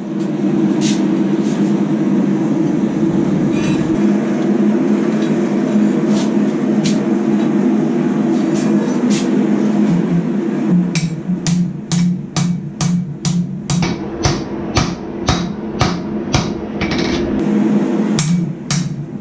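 Hand hammer striking hot spring steel on an anvil over the steady roar of a running forge. A few scattered blows come first, then from about halfway a steady run of blows, about three a second, drawing out the blade.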